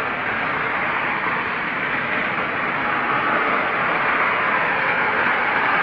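Steady, even rushing noise with no clear tone or rhythm, holding at one level throughout.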